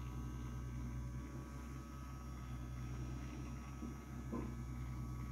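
Steady low hum of room tone, with one brief faint knock or rub about four seconds in.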